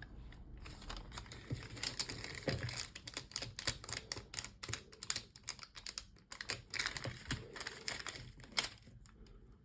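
Rapid, irregular small clicks and taps of craft supplies being handled and rummaged through on a work table, thinning out near the end.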